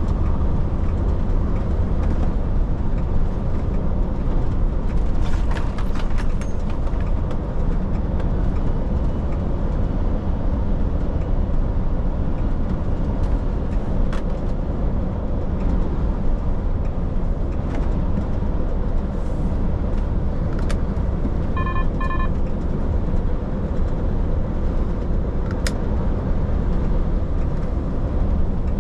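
Truck driving along the road: a steady low engine and road rumble. Two short electronic beeps sound about three-quarters of the way through.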